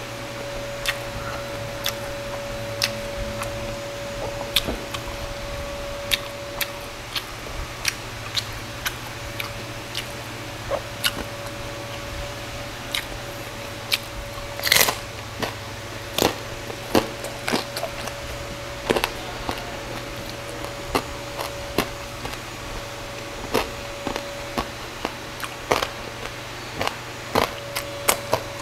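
Close-up crunching and chewing of crispy roast pork belly crackling (lechon liempo): sharp, irregular crunches as it is bitten and chewed, with the loudest cluster about halfway through. A steady low hum runs underneath.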